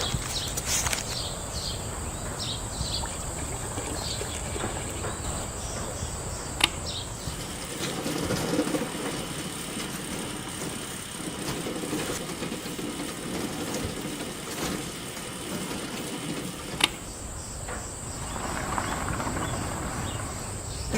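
Steady high insect drone over low background noise, with two sharp clicks, about seven and seventeen seconds in.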